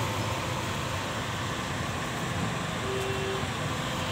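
Steady background din of a roadside shop, an even hum and rumble with no distinct event. A short faint tone sounds about three seconds in.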